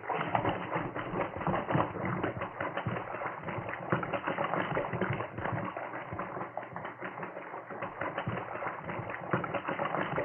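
Radio-drama sound effect of a swimmer sprinting in a pool: continuous irregular splashing of fast overhand strokes through the water. The old broadcast recording makes it dull and narrow in tone.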